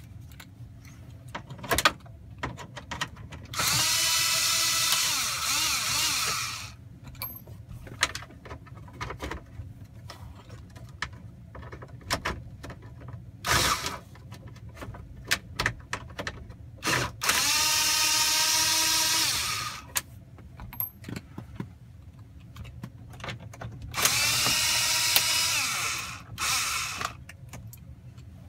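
A 1/4-inch cordless screwdriver backing out the 7mm screws that hold a Silverado/Sierra instrument cluster, running in three bursts of two to three seconds each, its motor pitch bending as the screw loads and frees. Short clicks and rattles of the bit and the loose screws come between the bursts.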